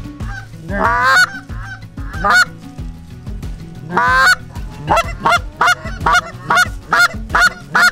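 Canada goose call blown by hand: a few drawn-out honks that break upward in pitch, then a fast run of short clucks, about three a second. It is calling geese in to the decoys.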